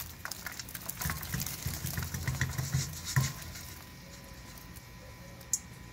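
Pieces of pork chicharrón sliding out of a stainless steel bowl and plopping into a clay cazuela of boiling salsa: a quick run of soft splashes and knocks that thins out after about three seconds.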